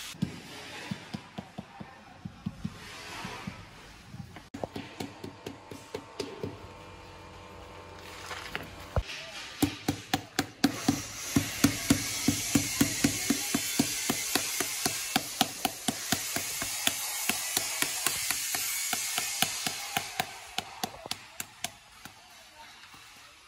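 Rubber mallet tapping ceramic floor tiles down into a mortar bed, a long run of short knocks at about two or three a second, loudest through the middle, over a steady background hiss.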